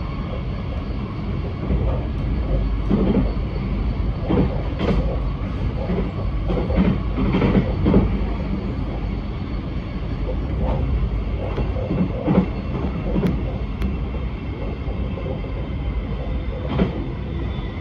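Alstom X'Trapolis electric suburban train heard from inside the carriage while running between stations: a steady rumble with irregular knocks from the running gear.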